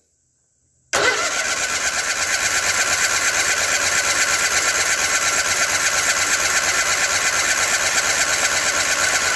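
A Case Ingersoll garden tractor's twin-cylinder engine cranked over by its electric starter with the spark plug wires off, turning steadily with an even pulsing but never firing; the cranking drives the hydraulic pump to push old oil out of the Hydrive system. It starts abruptly about a second in, after a moment of silence.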